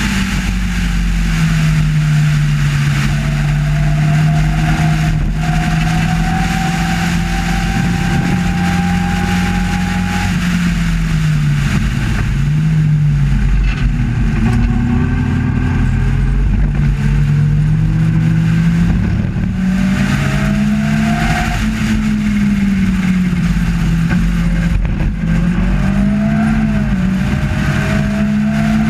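A racing sports car's engine under race load, heard onboard from the open cockpit. It runs at a steady pitch on the straight, then drops and climbs again several times, about halfway through and near the end, as the car brakes and accelerates through the corners.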